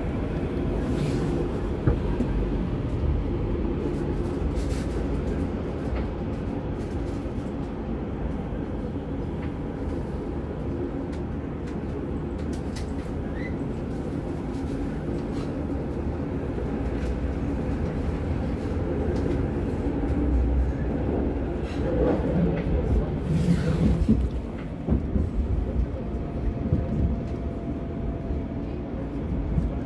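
Light-rail car running along the track, heard from inside the passenger cabin: a steady rumble with a low hum. There is one sharp click about two seconds in, and the noise grows louder and rougher about 20 seconds in.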